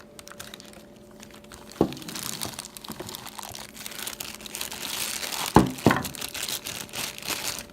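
Cardboard box and packaging crinkling and rustling as the heavy door closer body is worked out of it, with a sharp knock about two seconds in and two more close together near six seconds.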